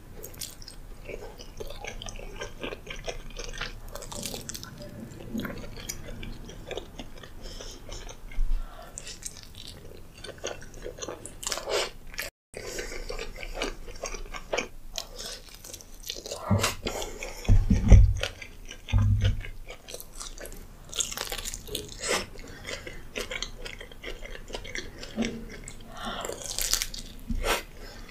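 Close-miked biting and chewing of pizza: a steady run of small wet mouth clicks and crackles, with a few louder low thumps a little past halfway.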